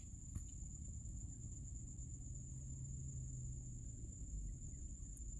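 Faint background noise between narration: a steady high-pitched tone over a low hum, with no distinct events.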